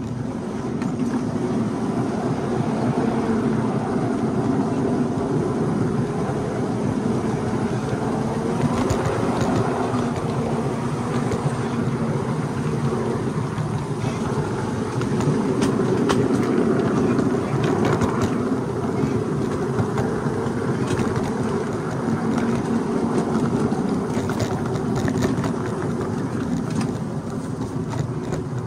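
Small miniature-railway work train, a shop-built locomotive pulling a flat car, rolling along 7½-inch gauge track: it gets under way in the first second, then runs as a steady rumble of wheels on rail, with faint wavering tones over the top.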